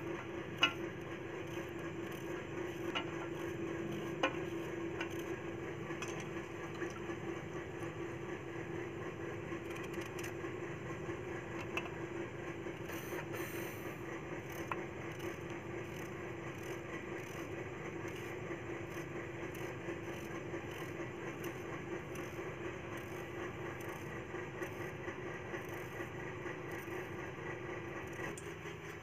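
Steady hum and hiss, with a few sharp clicks of a knife against a steel plate as red onions are peeled and chopped.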